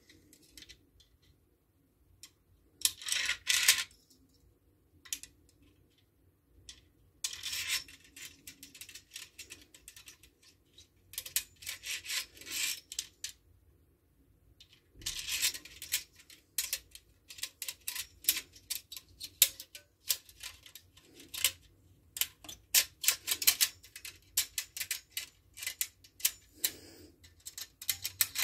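Small metal Insta Hang pegs being handled and pushed into the plastic Insta Hang tool: short bursts of rubbing and rattling, then a fast run of sharp clicks from about halfway.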